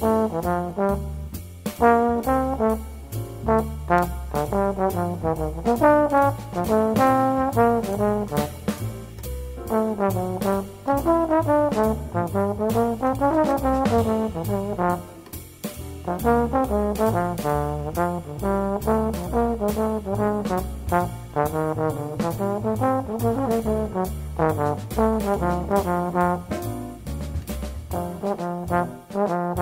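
Trombone playing a jazz etude line over a rhythm section, with a low bass line and a steady drum and cymbal pulse.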